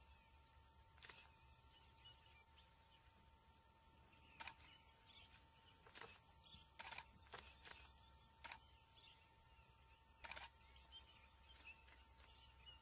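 Near silence broken by faint, irregular clicks of camera shutters, about ten of them.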